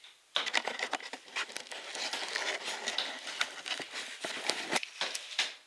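Paint roller rolling RedGard waterproofing membrane onto a cement-board floor: a dense crackling of many quick clicks, starting a moment in.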